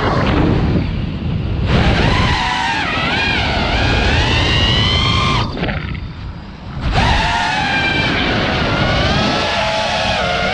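FPV quadcopter's brushless motors whining, the pitch rising and falling with the throttle, over a low rushing noise. The throttle drops off briefly about a second in, and again for over a second near the middle, then punches back up.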